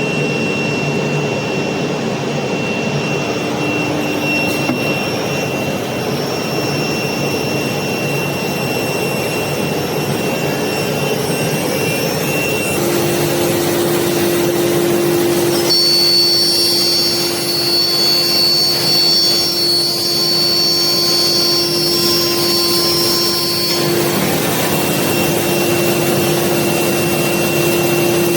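CNC router running: a steady high spindle whine over the noise of cutting. The tones change abruptly a few times.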